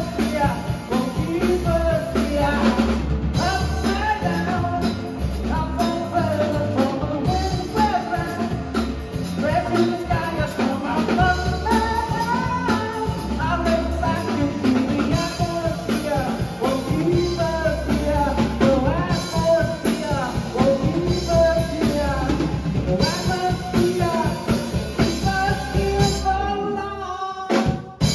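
Live rock band playing: a male singer over electric guitars, bass and drums. Near the end the low end drops out for about a second before the band crashes back in.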